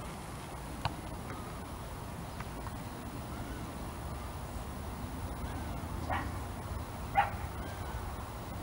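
A dog giving a few short barks, the loudest about seven seconds in, over steady low background noise.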